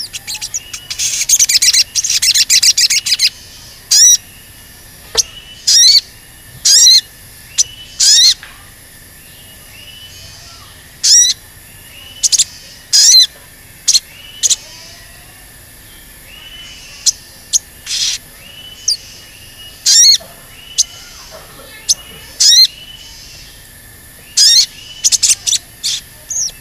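Male olive-backed sunbird (sogon) calling: sharp, high 'cuit' chirps, singly and in quick bursts, with a fast chattering run of them in the first few seconds. Softer chirps repeat in the background.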